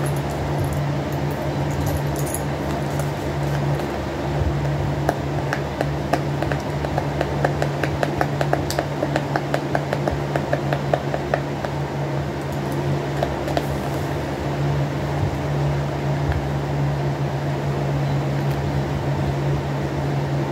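Electric fan humming steadily, with a quick run of small clicks for several seconds around the middle as box packaging is handled.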